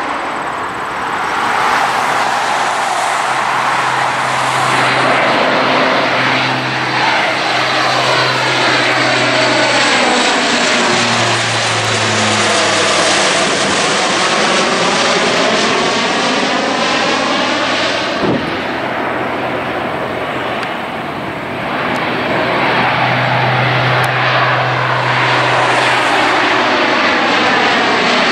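Four turboprop engines of a Lockheed Martin C-130J Hercules with six-bladed propellers, droning as the aircraft flies low overhead. The low propeller hum drops in pitch about halfway through and climbs again near the end as the plane moves across the sky.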